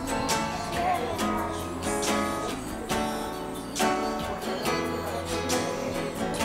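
Acoustic guitar strummed live, with a woman singing along.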